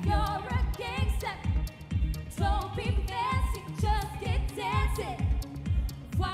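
Female pop vocalists singing live into microphones over a band backing with a steady drum beat.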